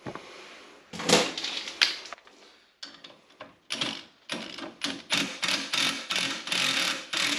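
Hitachi cordless impact wrench hammering in short repeated bursts, backing off the threaded rod of a coil-spring compressor on a UTV's front shock. Before it, a couple of sharp metal knocks about one and two seconds in.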